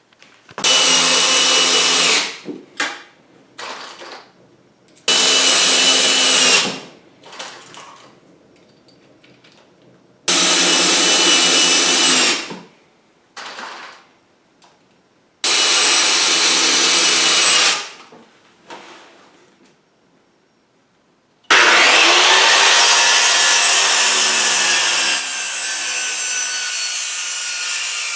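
Electric power saw cutting wood in four runs of about two seconds with pauses between, then running continuously through the last several seconds.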